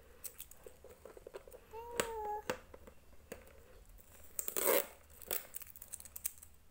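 Adhesive tape being peeled and torn off a plastic toy case: scattered crackling clicks, with a louder rip about four and a half seconds in.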